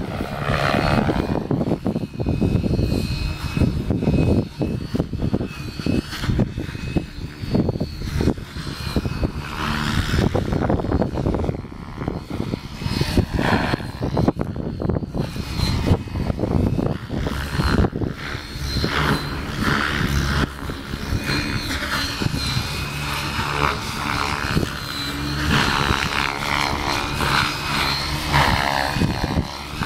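Electric 700-class RC helicopter (Beam E6 AvantGarde V2 with an Align 700MX motor) in flight: the motor and rotor give a steady high whine that bends slightly as the pitch changes. Heavy wind buffets the microphone with an uneven low rumble.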